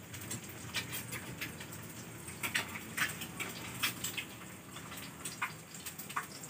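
Hot cooking oil crackling in a frying pan, with irregular sharp pops every second or so.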